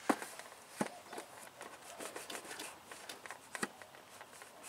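Handling noise from parts being picked up and moved: a few sharp clicks, the loudest right at the start, over light rustling.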